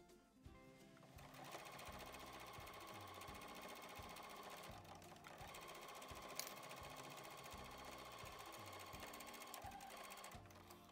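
Electric domestic sewing machine stitching through layered denim and felt, running steadily from about a second in, dropping out briefly near the middle and stopping near the end. Background music with a steady beat plays throughout.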